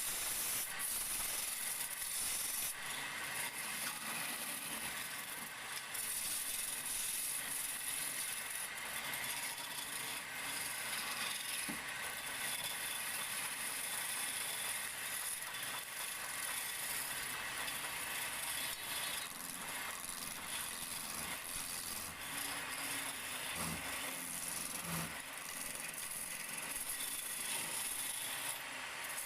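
Wood lathe turning a wooden charpai leg, the hand-held chisel scraping steadily against the spinning wood.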